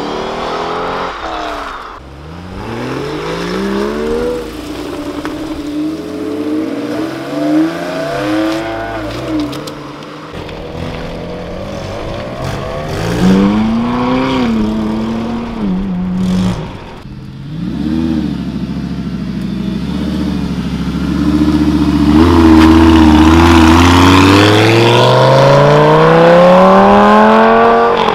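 Several sports car engines accelerating hard, one clip after another, starting with a Chevrolet Corvette's V8 pulling away. The engine notes climb in pitch through repeated rising sweeps, and the loudest is a long rising run near the end.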